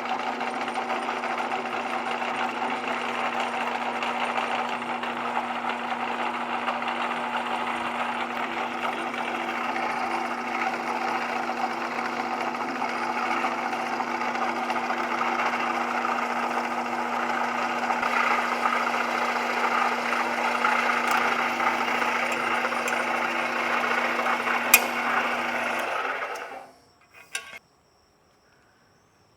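Drill press running steadily as it bores a hole through a small clamped shim piece, with one sharp click about 25 seconds in. It shuts off and winds down near the end.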